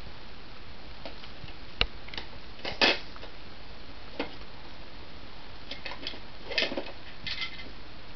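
Hard plastic rings of a baby's stacking toy clicking and clacking against each other and the stacking cone as they are handled: scattered single clicks and a few short clusters of knocks, over a steady background hiss.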